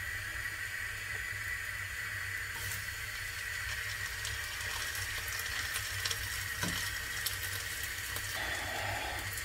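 String cheese frying in hot oil in a pan: a steady sizzle of bubbling oil.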